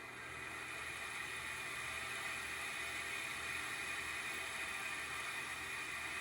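Cooling fan (FDC10U12D9-C) of an ASUS GeForce RTX 3060 12GB Phoenix graphics card running with a steady whirring hiss. This is an abnormal fan noise: the fan has failed, which the owner puts down to either a wobbling shaft or a bearing that has run out of oil.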